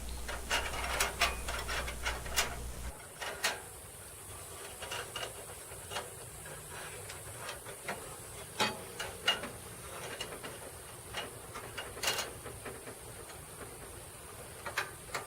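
Scattered light clicks and taps of metal parts being handled as a narrow band saw blade is fitted onto the saw's wheels. A low steady hum in the background cuts off about three seconds in.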